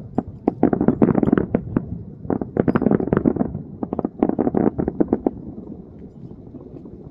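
A rapid, irregular volley of sharp explosive bangs, five or six a second, over a low rumble; the bangs stop about five seconds in, leaving the rumble.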